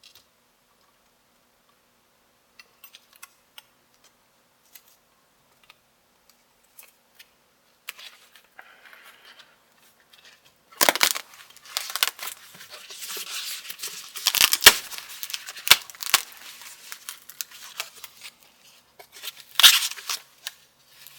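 Faint small clicks of handling for several seconds, then about halfway through a stretch of loud crinkling and tearing of thin plastic, with two louder peaks near the end.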